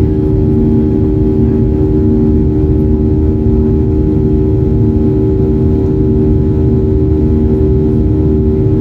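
Steady cabin noise inside a Boeing 737-800 in motion, heard from a window seat: the low rumble of its CFM56-7B engines and airflow, with a steady hum of several held tones.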